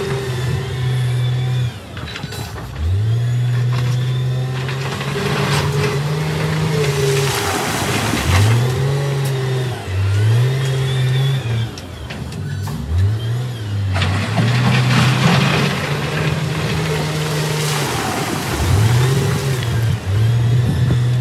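SDLG wheel loader's diesel engine revving up under load and dropping back again and again, every few seconds, as it pushes broken rock, with the crunch and rattle of the rock over it.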